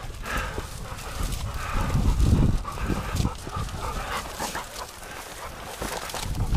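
A dog close by, panting and whining faintly as it scrambles over rock. A loud low rumble hits the microphone about two seconds in.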